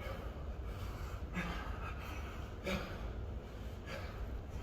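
A man breathing hard from exertion during deep squats, with a few sharp, forceful breaths.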